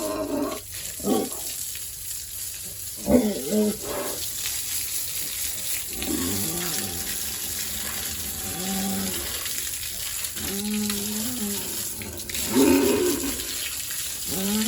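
Water running steadily, as from a hose washing down a pig pen, while pigs grunt in short pitched calls every second or two, two of them louder about three seconds in and near the end.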